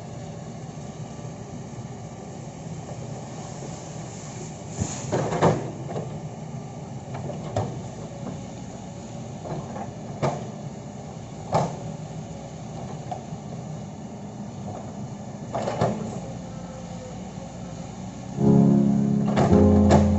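Kobelco hydraulic excavator's diesel engine running steadily, with a handful of sharp clunks and knocks from the machine working. Acoustic guitar music comes in near the end.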